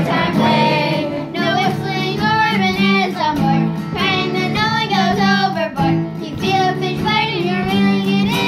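Two children singing a sea shanty together in unison, accompanied by an acoustic guitar.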